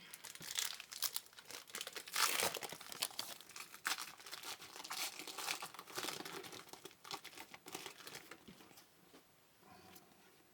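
Trading card pack wrapper crinkling and tearing open, a dense irregular crackle that thins out toward the end.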